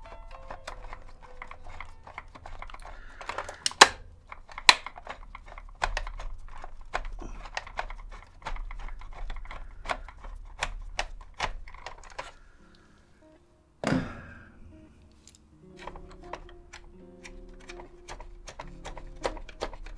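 Background music with a clicking beat and stepped notes, alongside sharp clicks. It fades out briefly about two-thirds of the way through, and a single knock comes just before it returns.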